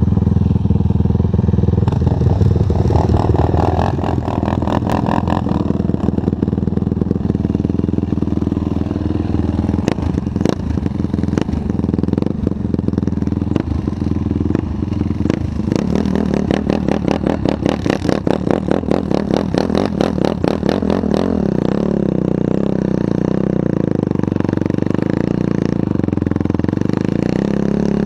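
Yamaha YFZ450 quad's single-cylinder four-stroke engine idling with a distinct beat of separate firing pulses. It changes to a smoother, higher-pitched run about three-quarters of the way in as the quad pulls away.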